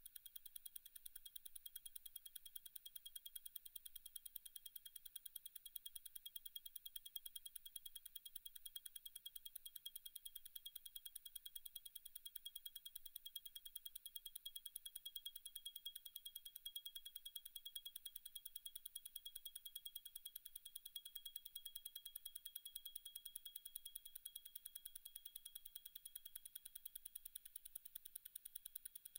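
Faint, rapid and even ticking of a Zenith El Primero 3600 automatic chronograph movement beating at 36,000 vph, ten beats a second.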